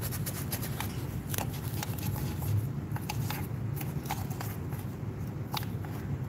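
Faint clicks and scrapes of brazing flux paste being dabbed from its jar onto a copper refrigerant line joint, over a steady low hum.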